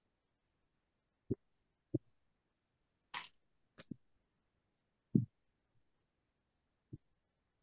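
Marker knocking and stroking on a whiteboard: a few short, separate knocks, with a brief scratchy stroke about three seconds in.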